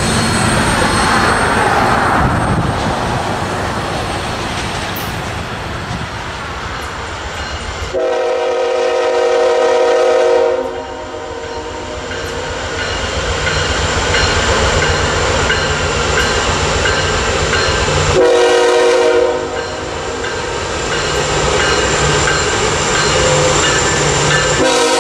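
A work train's cars rolling away over the rails, the clatter fading. Then an approaching freight's diesel locomotive air horn sounds a long chord, a shorter one and a third starting near the end, over the steady rumble of the engines, warning of the grade crossing.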